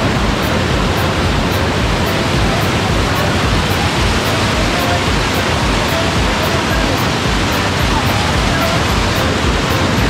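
Waterfall: a steady, loud rush of falling and splashing water, heard close.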